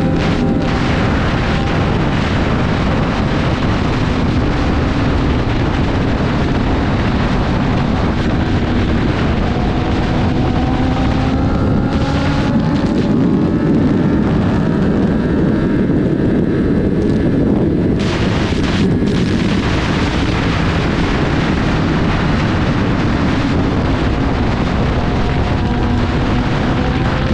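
Sport motorcycle riding at speed: a dense roar of wind buffeting the microphone over the engine, whose pitch climbs about ten seconds in.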